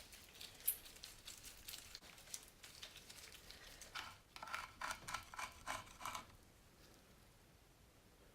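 Socket ratchet clicking as 10 mm sump bolts are undone: scattered clicks at first, then a fast run of clicks about four seconds in that stops about two seconds later.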